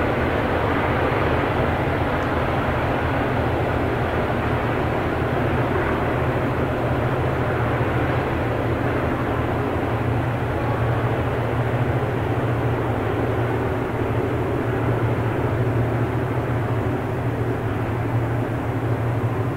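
Vintage B class diesel-electric locomotive hauling a freight train, heard out of sight as a steady, loud, low engine drone under load while it pulls away, easing only slightly near the end.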